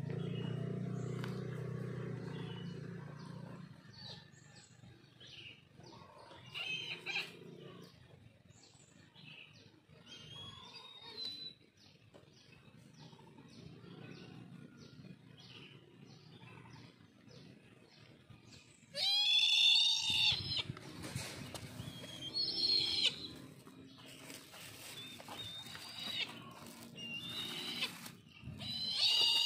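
Brahminy kites calling: hoarse, wavering mewing calls. The loudest comes about two-thirds through and another near the end, with small chirps and ticks in between. A low steady hum runs through the first few seconds.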